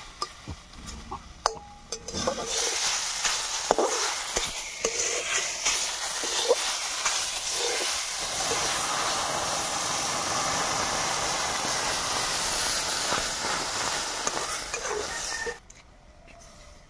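Snake fish (snakehead) pieces sizzling loudly and steadily in hot oil in a metal kadai over a wood fire, after a couple of seconds of a steel spatula knocking and scraping in the pan. The sizzle cuts off suddenly near the end.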